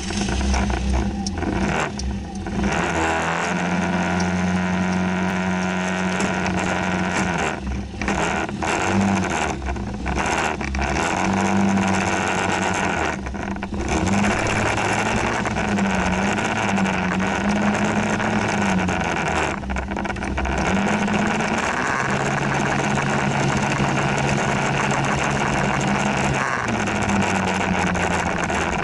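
Motor scooter engine running while riding, its pitch rising and falling again and again with the throttle, then holding lower and steady for a few seconds near the end.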